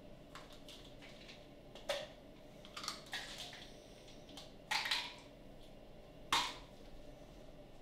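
Short clicks and clatters of small objects being handled, in four separate bursts about a second or so apart, the last two the loudest.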